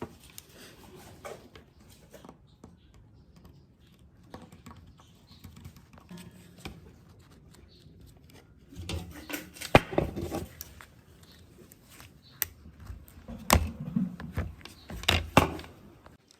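Scattered clicks and knocks of small hard parts and tools being handled on a workbench, sparse at first and busier in two spells in the second half.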